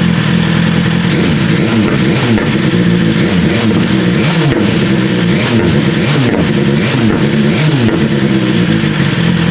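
BMW S1000R inline-four through an Austin Racing V3 MINI slip-on exhaust, blipped from idle in a run of quick revs that rise and fall, with sharp pops and crackles on the overrun, the backfires it gives once warm. It settles back to idle near the end.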